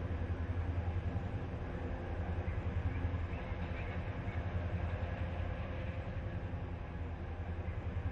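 Diesel-electric freight locomotives running in multiple and hauling a freight train, a steady low engine drone with train rumble.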